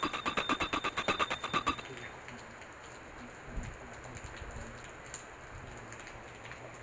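Brass puja hand bell (ghanti) rung rapidly, about six or seven strokes a second, stopping about two seconds in. After that only faint background noise, with one soft thump later on.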